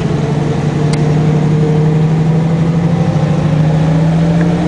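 1962 Chevrolet C10 pickup's 283 small-block V8 with an Edelbrock four-barrel carburettor pulling away and cruising at low speed, heard from inside the cab. Its steady engine note swells a little in the first second and then holds smooth and powerful.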